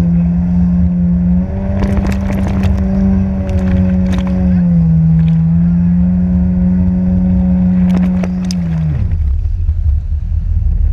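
Jet ski engine running at speed with a steady drone that steps up in pitch about a second and a half in, dips briefly, then falls away sharply near the end as the throttle comes off, over a heavy low rumble of wind and water.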